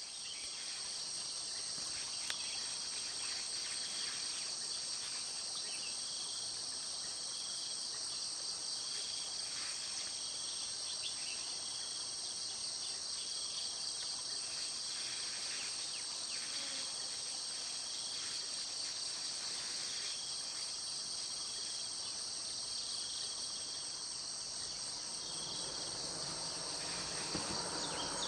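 Steady high-pitched insect chorus with a short, higher note repeating about once a second just below it; a broader rushing noise builds in the last few seconds.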